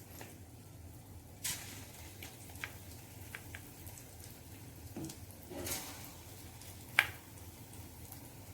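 Marinated chicken pieces frying in hot oil in a pan, with short spurts of sizzling. Small clicks of a utensil against the pan, and one sharp clink about seven seconds in.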